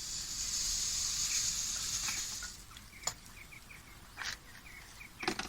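Fine nyjer seed pouring into a bird feeder with a steady hiss for about two and a half seconds, then a few sharp knocks and clicks. A small bird chirps repeatedly in the background.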